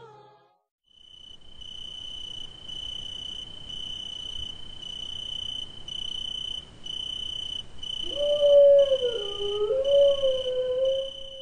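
Crickets chirping in a steady, regular pulse, joined about eight seconds in by a long, wavering canine howl, which is the loudest sound.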